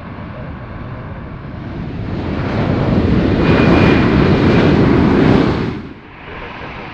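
Jet airliner on landing approach passing close by: engine noise builds to a loud peak with a thin high whine, then cuts off suddenly near the end.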